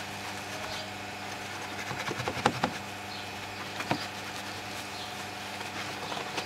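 Soapy synthetic wash mitt rubbing and squelching over a plastic wheel trim and tyre, with a cluster of sharp knocks about two and a half seconds in and another near four seconds. A steady low hum runs underneath.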